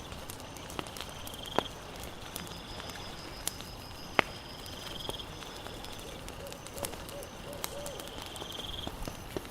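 Campfire crackling, with scattered sharp pops, two of them louder. Insects chirp in short trills behind it, with a steady high buzz for a few seconds in the middle.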